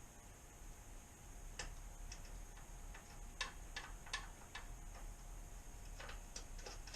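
Irregular sharp metallic clicks, about ten in all and bunched in the second half, of hand tools working the exhaust's mounting hardware.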